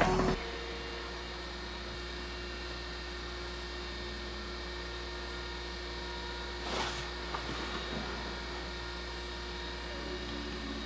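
Steady low electrical hum. About seven seconds in there is a brief scrape, followed by a few light clicks.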